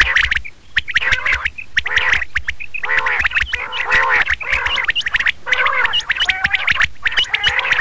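Common quail calls, as played for a hunting lure: a dense run of sharp clicking notes and short rising-and-falling calls, with brief pauses near the start and about five seconds in.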